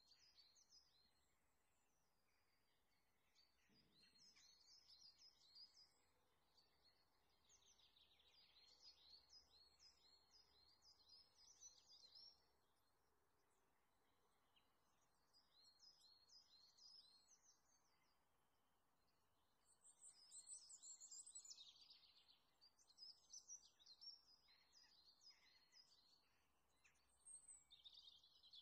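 Faint bird chirping: phrases of rapid, high, short notes that come in bursts of a few seconds, again and again. There is a soft low thump about four seconds in.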